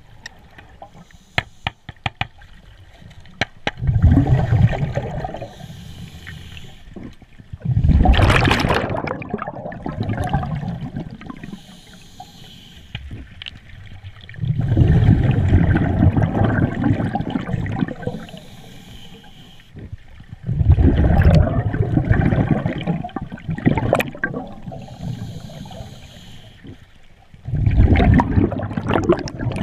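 A scuba diver breathing through a regulator underwater: five bursts of exhaust bubbles, roughly one every six seconds, each lasting a couple of seconds, with quieter stretches between as the diver breathes in. A few sharp clicks come in the first few seconds.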